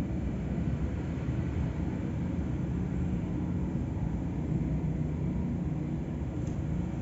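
Steady low rumble of background noise, even throughout, with no distinct events.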